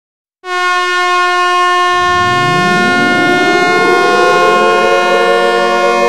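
Ice hockey goal horn: a loud, steady air-horn blast starts about half a second in. From about two seconds a siren winds up beneath it, rising in pitch and levelling off near the end.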